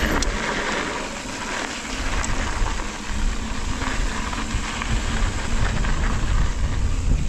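Mountain bike riding down a trail: tyres rolling over the ground, with steady wind noise on the microphone.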